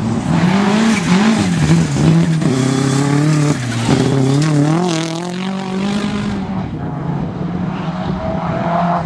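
Rally car engine revving hard, its pitch climbing and dropping again and again through gear changes as the car drives up and passes close by about four to five seconds in, then settling to a steadier, quieter engine note.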